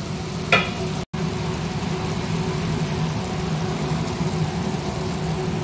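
A steady low machine-like hum under a faint hiss, broken by a brief cut-out about a second in.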